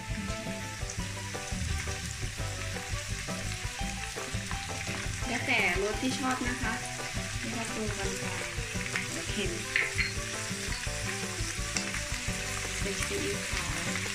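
Snow peas and minced pork sizzling as they are stir-fried in a wok, with a spatula scraping and knocking against the pan now and then.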